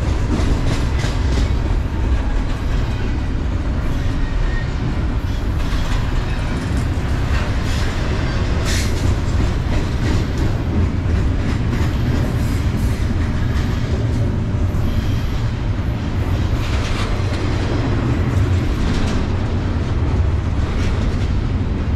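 Double-stack intermodal container cars rolling slowly past at restricted speed: a steady low rumble of steel wheels on rail, with scattered knocks and clanks.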